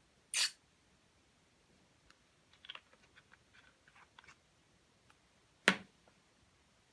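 Two sharp snaps or clacks, one just after the start and a louder one near the end, with a scatter of small quiet clicks and crackles between them, like small plastic items being handled.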